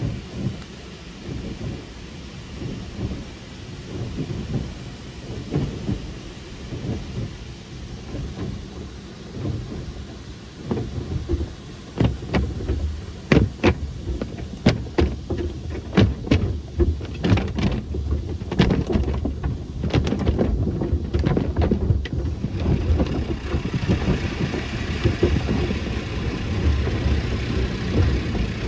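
Tunnel car wash heard from inside the car: water and soap spray drumming on the roof and glass. From about twelve seconds in, spinning foam brushes slap and thud repeatedly against the windshield and roof for about ten seconds.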